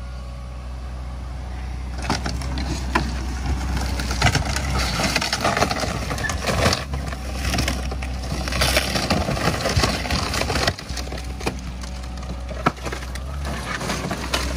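A Hyundai HX160L excavator crushing and tearing apart a heap of scrap with its demolition-magnet attachment. There is a dense run of crunching, cracking and splintering from about two seconds in, over the steady low hum of the excavator's diesel engine.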